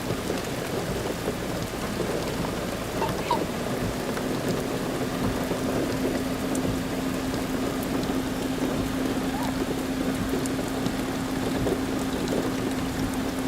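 Heavy rain falling steadily on the ground, with a low steady hum that comes in about four seconds in.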